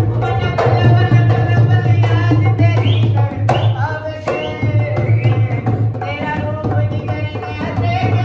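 Live Indian folk music: a dhol barrel drum beaten in a steady rhythm under a singing voice.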